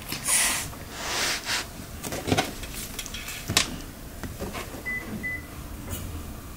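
Crinkly plastic ribbon cat toy rustling in short swishes as it is wiggled and batted about, with a few sharp clicks and taps against the wooden floor.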